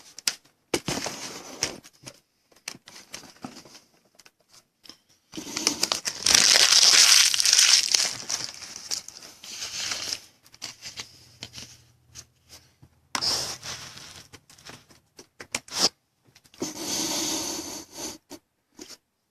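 Desk handling noises: scattered clicks and taps with bursts of crinkling, rustling noise like plastic or paper being handled, the loudest stretch lasting several seconds about a third of the way in.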